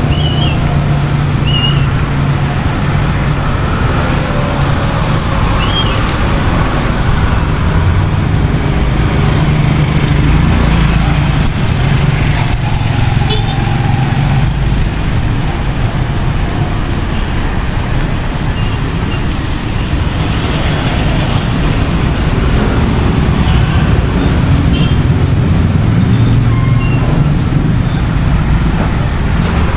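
Street traffic: motor vehicle engines running and passing, a steady low engine hum over road noise, with a few short high chirps here and there.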